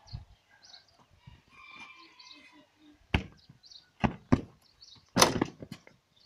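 A football being kicked during keepy-uppy: a few sharp thuds of foot on ball. The first comes about three seconds in, two follow close together around four seconds, and the loudest, with a brief scuffing tail, about five seconds in.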